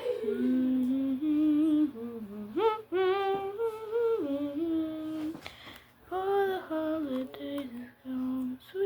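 A child humming a made-up tune to herself: held notes that slide up and down between pitches, in short phrases with brief pauses.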